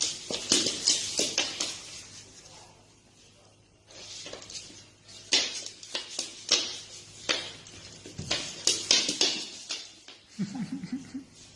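Irregular sharp clicks and clattering of small hard objects knocking together, in clusters with a brief lull, then a short low voice-like call near the end.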